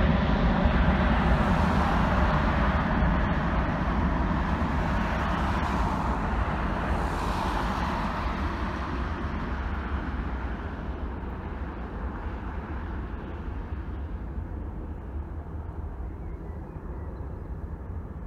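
Jet engines of a DHL twin-engine cargo jet, a steady rumble with a hiss above it, fading gradually as the plane flies away.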